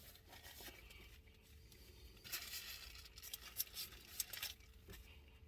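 Quiet eating sounds: a sandwich in its paper wrapper being handled and bitten, with a stretch of crinkling and crackling clicks from about two seconds in until about four and a half.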